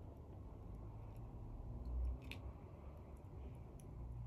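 Faint handling noise of fishing line being tied onto a 3D-printed plastic coin dropper: a few light clicks, the sharpest about two seconds in, over a low steady room rumble.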